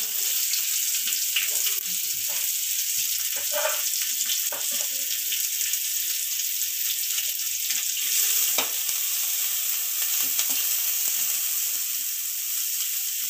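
Chopped onion sizzling in hot oil in a metal kadai with mustard seeds and curry leaves, a steady hiss with scattered small crackles; near the end a perforated ladle stirs it around the pan.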